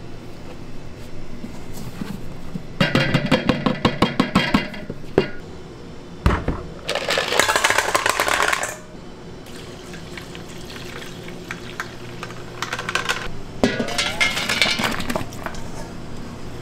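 Bakery prep sounds: a few seconds of rapid clattering, a low thump, then about two seconds of rushing noise, with more clatter near the end over a steady low hum.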